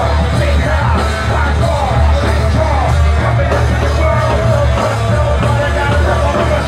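Loud live hip-hop concert music with heavy, pounding bass and shouted vocals, heard from within the crowd.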